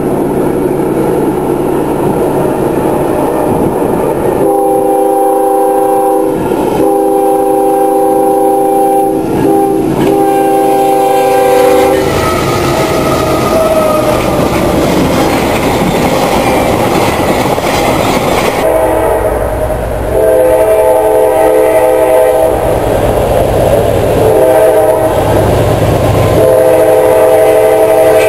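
Freight train's locomotive air horn, a multi-chime horn, sounding a series of long blasts about four seconds in, the first four in the long, long, short, long pattern of a crossing signal, then another series of blasts in the second half. Under it runs the steady rumble and clatter of the loaded coal train rolling on the rails.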